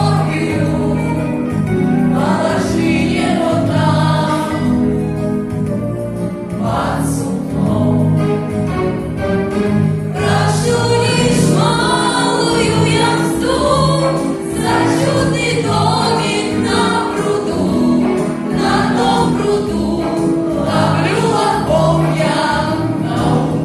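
Music with a group of voices singing over a bass line that moves in held notes.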